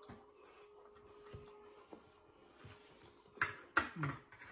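Quiet eating at the table: soft chewing and mouth sounds, then a few sharp clicks of forks against plates about three and a half seconds in. A faint steady hum runs underneath.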